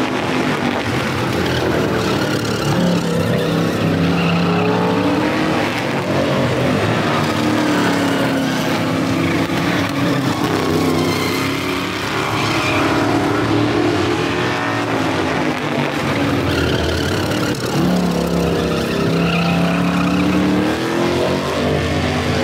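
Street stock race car engines running hard on a short oval track, several cars at once, their note rising and falling repeatedly as they accelerate down the straights and pass by.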